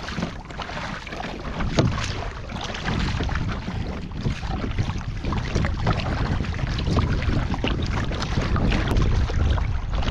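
Wind rumbling on the microphone over the splash and wash of a kayak paddle dipping in steady strokes, with water slapping against the hull of a sit-on-top fishing kayak in a light chop.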